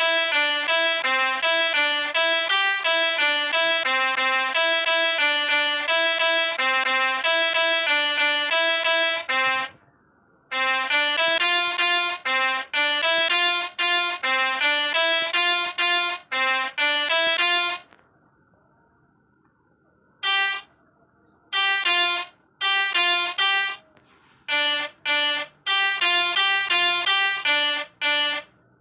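Melodica (pianika) playing a telolet bus-horn tune: quick runs of short notes alternating between a few pitches. The playing stops briefly about ten seconds in and for about two seconds near eighteen seconds, with a few short gaps after.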